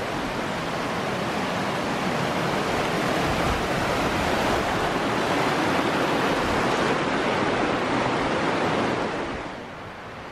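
Fast mountain creek rushing over rocks, a steady loud rush of water that drops to a quieter background hiss near the end.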